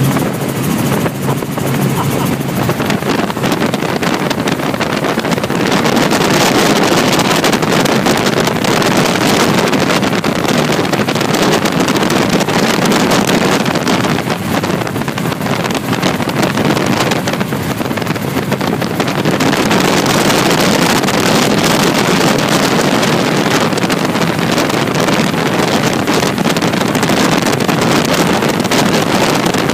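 Helicopter in flight: steady engine and rotor noise with wind buffeting the microphone, getting louder about six seconds in.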